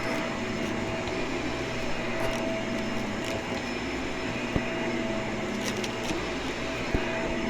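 Vacuum cleaner running steadily, with a couple of light knocks about four and a half and seven seconds in.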